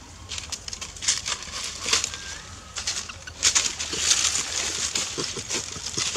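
Irregular rustling and crackling in dry leaf litter, loudest about three and a half seconds in, with a brief faint bird chirp about two seconds in.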